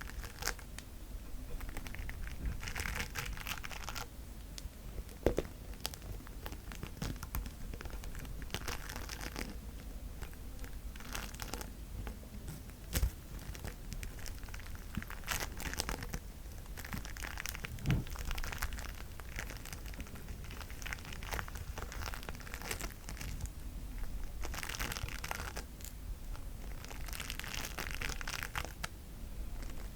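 Crunchy bead slime being squished and stretched by hand, crackling and popping in repeated bursts of a second or two, with a few sharper pops.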